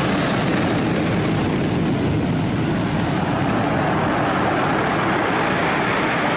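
Sea waves breaking and washing up over a cobble beach: a steady rushing noise.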